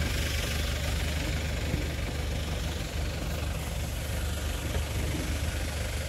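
A vehicle engine idling steadily, a constant low hum under an even hiss.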